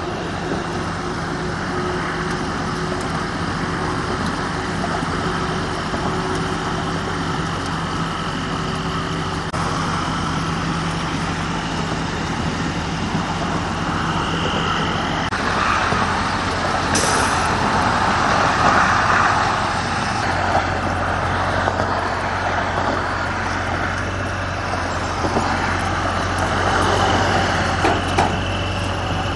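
Truck engines running steadily at idle, a low hum that changes pitch twice, under a broad rush of road noise that grows louder about halfway through.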